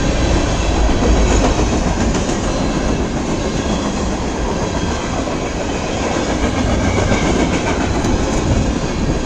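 Canadian National mixed freight train passing fast: a steady, loud rumble of steel wheels rolling on the rails.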